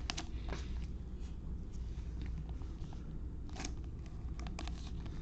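Short crinkles and clicks of a trading card being handled and slid into a plastic card sleeve, scattered irregularly over a steady low hum.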